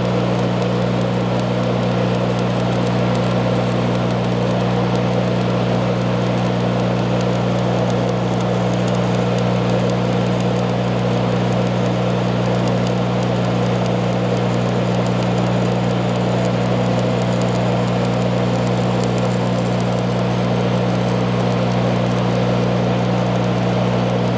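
Stick welding arc crackling and sizzling steadily as a bead is run on steel plate, over a steady low hum from the welder.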